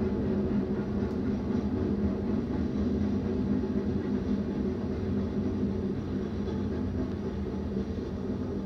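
BNSF diesel locomotive running light (without cars), a steady engine drone over a low rumble that eases off slightly near the end.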